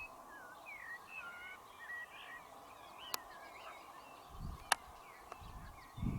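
Faint outdoor birdsong: many small birds chirping and warbling in short rising and falling phrases over a steady hiss, with two sharp clicks partway through and low rumbles near the end.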